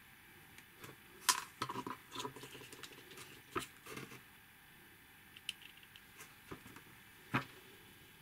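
Handling noises from assembling a printed card model kit: irregular light clicks, taps and scratchy rustles as small card parts and a wire pin are pushed together in the fingers. There are sharper clicks about a second in, halfway through and near the end.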